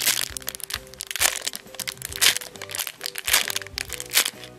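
Clear plastic bag crinkling and crackling in several bursts as a squishy toy sealed inside it is handled, over steady background music.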